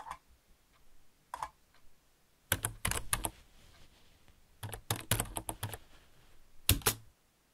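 Typing on a computer keyboard in bursts of keystrokes: a few scattered keys, a quick run about two and a half seconds in, a longer run about five seconds in, and two final keystrokes near the end.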